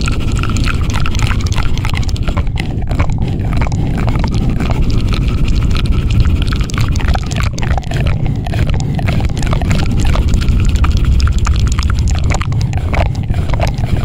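Close-miked ASMR 'helicopter' trigger: a loud, steady rumble with rapid, irregular crackling clicks.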